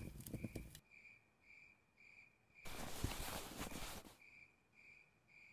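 Crickets chirping steadily, about two high chirps a second. In the middle, a louder rustling burst of noise lasts about a second and a half and briefly covers the chirps.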